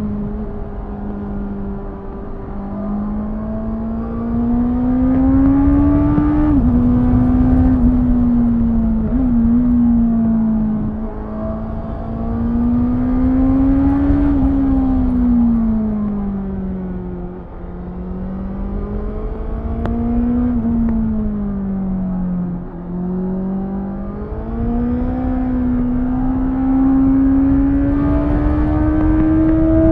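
Honda CBR650F inline-four engine (restricted to 35 kW) under way, its pitch climbing slowly under throttle and falling off again several times, with a quick drop about six seconds in as a gear is changed. Wind rushes over the microphone underneath.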